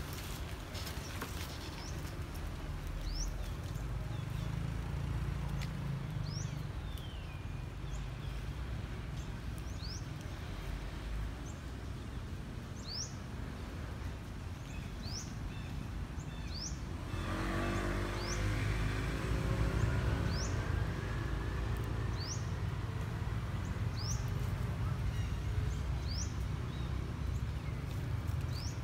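A bird repeats a short, high whistle that drops in pitch, every second or two, over a steady low outdoor rumble. About halfway through, an engine hum comes in and grows louder, its pitch slowly rising.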